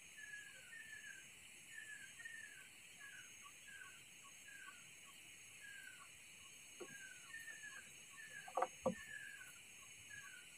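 Faint series of short falling chirps from a small bird, one or two a second, over a steady high hiss. Two sharp knocks stand out near the end.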